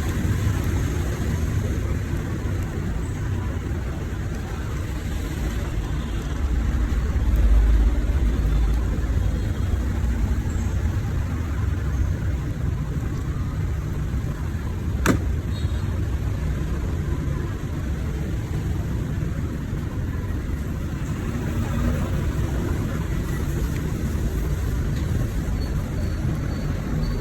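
Steady low rumbling background noise that swells briefly about seven to eight seconds in, with one sharp click about fifteen seconds in.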